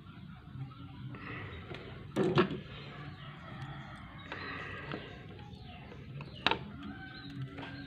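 Two sharp clicks about four seconds apart: side cutters snipping the leads of a freshly soldered electrolytic capacitor on a TV circuit board.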